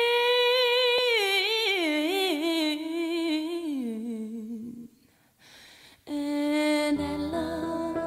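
Song with an unaccompanied singing voice holding a long high note with vibrato, then running down in a wordless melisma and fading out about halfway through. After a short pause, piano chords come in, joined a second later by a bass line.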